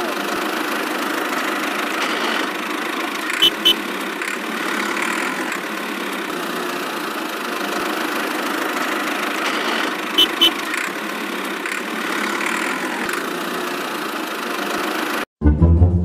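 Tractor engine running steadily, with a quick double click twice. It cuts off suddenly near the end.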